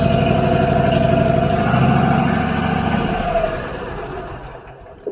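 Portable sawmill's gasoline engine running steadily, then shut off about three seconds in and winding down to a stop, with a single click near the end.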